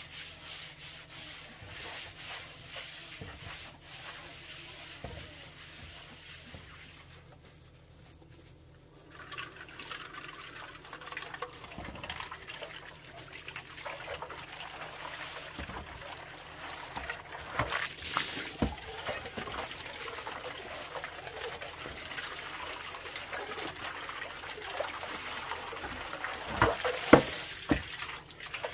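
Liquid trickling and sloshing in kitchen work, with scattered clicks and knocks; the loudest knocks come near the middle and near the end.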